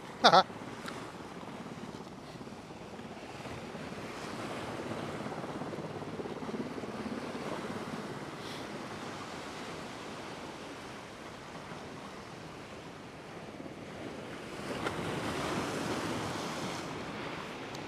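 Rough ocean surf washing against a rock jetty: a steady rush of waves that swells about four seconds in and again, louder, near the end. Right at the start there is one brief sharp sound that falls in pitch.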